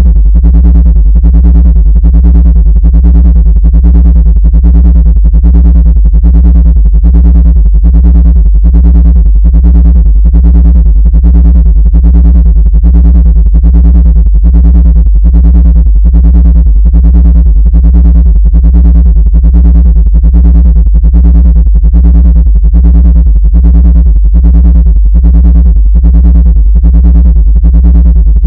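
Loud, distorted low synthesizer drone that pulses evenly about twice a second without change, a looped tone put out as a sound to drive ants out of a laptop.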